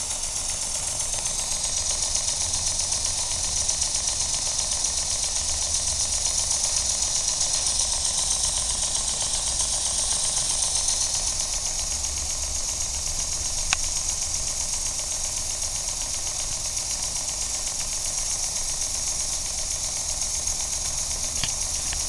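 Danni #1 model steam engine running on steam from a small horizontal boiler: a rapid, even mechanical clatter over a steady hiss, with one sharp click about halfway through.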